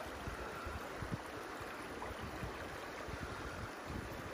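Steady rush of the Rangitata River's water flowing past.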